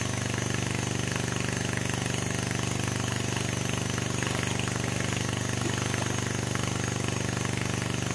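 New West 707 two-stroke chainsaw idling steadily, its engine note even and unchanging.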